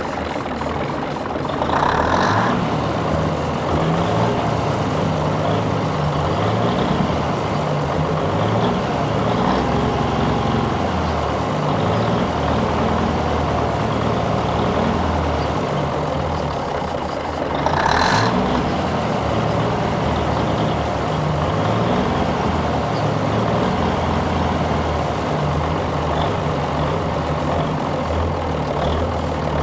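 Cummins diesel engine of an old Diamond REO dump truck running unevenly on ether (starting fluid) sprayed into its intake, with a heavy low throb. The tank ran dry and the fuel system has lost its prime, so the engine keeps going only on the ether.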